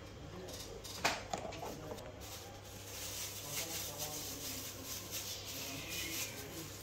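Indistinct background voices, with a sharp knock about a second in and a hiss from about three seconds on.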